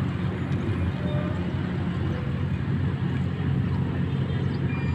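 Steady low outdoor rumble, with no distinct sounds standing out.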